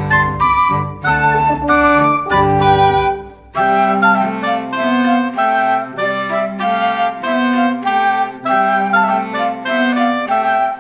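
Instrumental background music: a melody of held notes over a steady accompaniment, with a brief drop about three and a half seconds in before a new passage starts.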